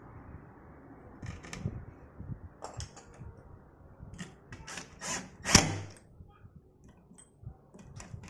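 Short, irregular scraping strokes on wood, loudest about five and a half seconds in, over a faint low background hum.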